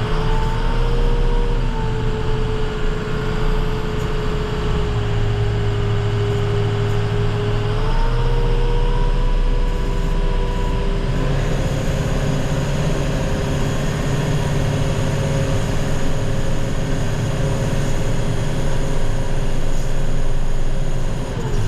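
Snowplow truck's engine running under way, a low rumble with a steady whine above it that shifts in pitch a few times as the truck slows and speeds up.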